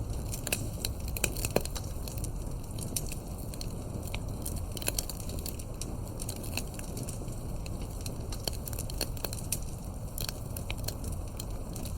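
Wood fire crackling in a fireplace: irregular sharp pops and snaps of varying loudness over a steady low rumble of the burning fire.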